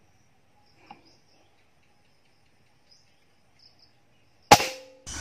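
A single rifle shot about four and a half seconds in, sharp and loud, fired from a scoped rifle at a quail. Before it, only faint insect and bird chirps.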